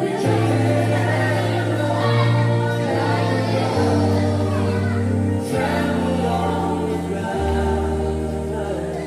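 A group singing a Christian hymn together over a sustained bass accompaniment whose notes change every second or two.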